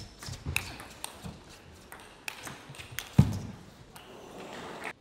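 Table tennis ball ticking sharply off the bats and table in a rally, several quick clicks, then a heavy thud about three seconds in, the loudest sound. Soft crowd noise rises near the end.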